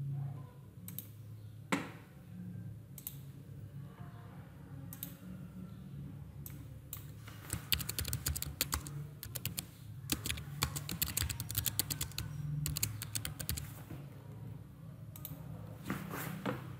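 Typing on a computer keyboard: a quick run of keystrokes for about six seconds in the middle, with separate single clicks of a computer mouse before and after.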